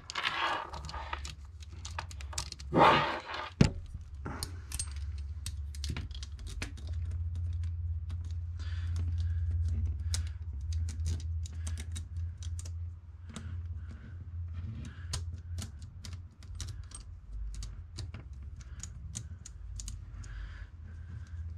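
Full-chisel saw chain clicking and rattling as its drive links are worked back and forth in the groove of the chainsaw guide bar, testing how loosely the chain fits. The rapid small metallic clicks run over a steady low hum, with a couple of louder knocks in the first few seconds.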